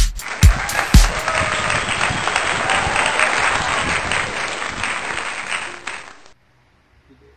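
Crowd applause over the last kick-drum beats of a dance track, cutting off suddenly about six seconds in.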